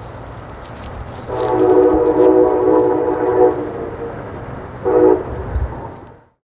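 A horn sounds one long blast of nearly three seconds, then a short blast about a second later, over a steady low rumble.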